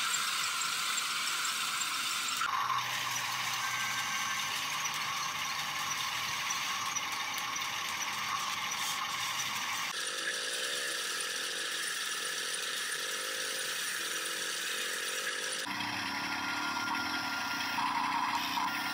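Huina radio-controlled toy excavator's small electric motors and gearboxes whining and buzzing as it drives and works its arm. The high-pitched whine jumps to a different pitch suddenly three times.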